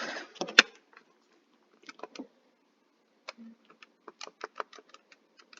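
Keys being tapped to enter a calculation: a string of short, light clicks, a few at first, then a quicker run of three or four a second in the second half.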